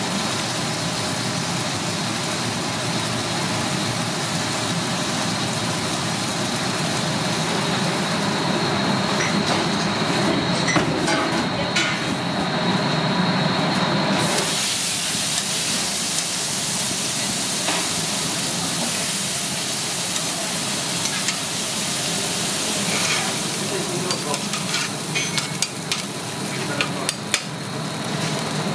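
Restaurant kitchen cooking sounds: a steady sizzle with metal tongs working roast pork in a steel pan, then pulled pork frying on a flat-top griddle. Sharp metal clicks and scrapes come near the end.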